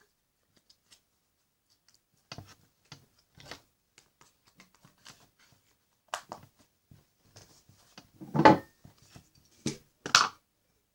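Clear slime being squished and poked by hand, making scattered sticky clicks and pops, with two louder squelches about eight and a half and ten seconds in.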